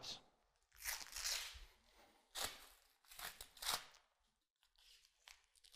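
Faint handling noise of a tourniquet strap and fabric: a few short rustling scrapes.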